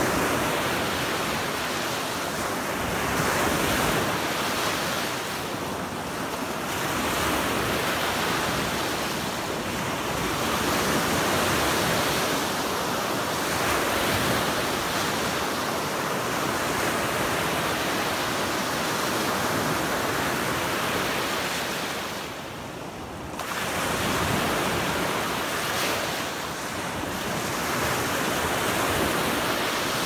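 Small freshwater waves on Lake Michigan breaking and washing up a sandy beach: a continuous rush of surf that swells and eases every few seconds, with a brief lull about three-quarters of the way through.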